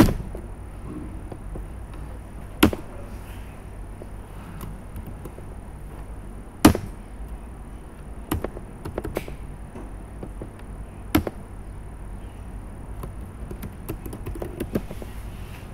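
Scattered sharp clicks from a computer keyboard and mouse: two loud single clicks in the first half, then a run of lighter keystrokes as a line of text is typed. Under them a steady low hum and a faint high whine.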